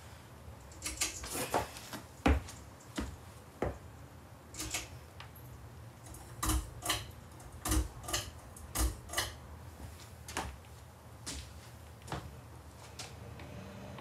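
Harbor Breeze Cedar Shoals ceiling fan's pull chain being tugged, its switch and metal chain giving a string of irregular sharp clicks. A faint hum comes in near the end as the fan starts turning.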